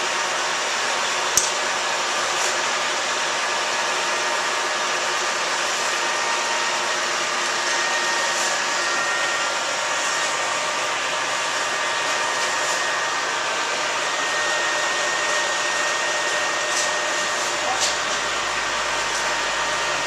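Steady whir of machine-shop machinery, with faint steady tones above it. A sharp click comes about a second and a half in, and a lighter one near the end.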